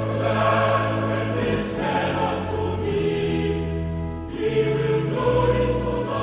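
Choral music: a choir singing long held chords, with a short break between phrases about four seconds in.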